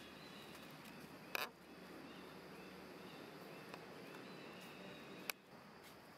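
Faint outdoor background hiss, broken by a few short sharp clicks, the loudest about one and a half seconds in and another near the end.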